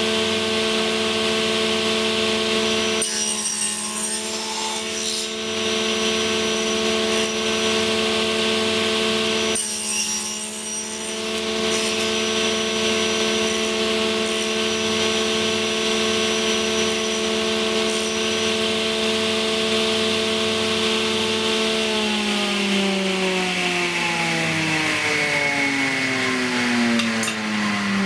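Circular saw of a UKM300 woodworking machine running with a steady whine as a tenon jig carries the wood through the blade, with two passes of cutting noise about 3 and 10 seconds in. About three-quarters of the way through, the motor is switched off and the whine falls steadily in pitch as the blade spins down.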